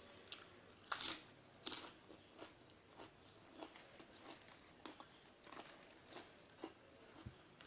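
A person biting into and chewing nam tok moo, spicy grilled pork salad, close to the microphone. Two crisp crunches come about a second in, then softer chewing clicks at a steady pace.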